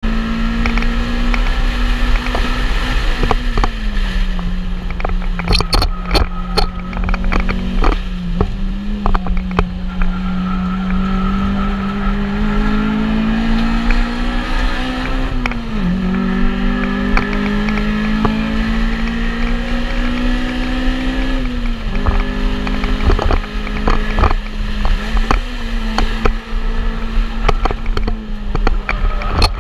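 Car engine heard from inside a stripped track car's cabin, driven hard around a circuit. Its pitch climbs slowly and drops suddenly a few times, with a low rumble, road and wind noise, and a few sharp knocks.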